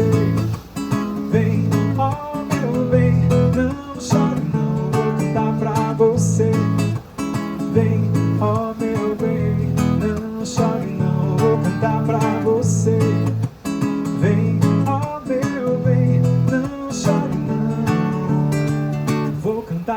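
Acoustic guitar music with strummed chords over a bass line that changes note about every second.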